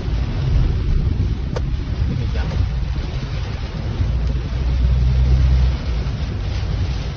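Storm wind and rain, with gusts buffeting the microphone in a heavy low rumble that swells for a couple of seconds past the middle.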